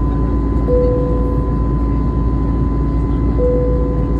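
Cabin noise of an Airbus A320neo: a steady rumble and rush of engine and air noise with a constant whine through it. A short humming tone sounds twice, about a second in and again near the end.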